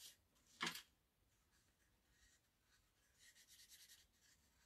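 Felt-tip marker scribbling on paper, faint: a quick run of short strokes about three seconds in, otherwise near silence. A single brief click comes just under a second in.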